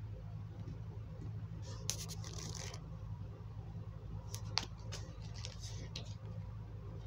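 Pokémon trading cards being handled and slid against each other: a few short rustles and sharp clicks, about two seconds in and again around four to six seconds in, over a steady low hum.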